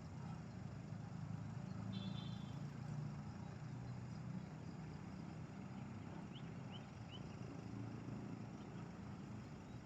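An engine running steadily at low speed, a low even hum. A few faint high chirps sound about two-thirds of the way through.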